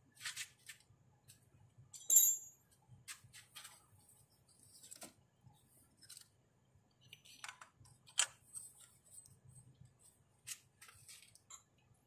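Scattered clicks and scrapes of hands and a metal tube box spanner working around a car's gearbox-mounted reverse light switch, with a sharp click about two seconds in and another about eight seconds in.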